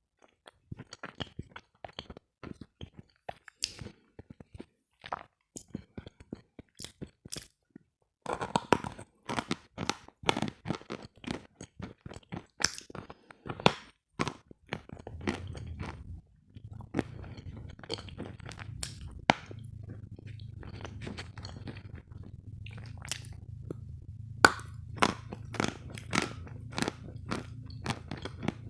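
Close-up crunching and chewing of hard sawn lump sugar, a rapid run of sharp crunches. About halfway through, a low steady hum comes in underneath.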